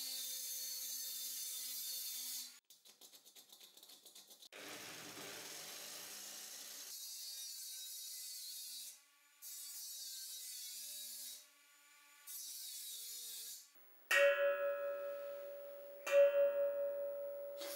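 Dremel rotary tool with a small cutting disc cutting slits into a steel frying pan, a steady high whine with grinding hiss, in several passes with short pauses. Near the end a tongue cut into the steel pan is tapped twice by hand for a tuning check, each tap ringing one clear note that fades slowly.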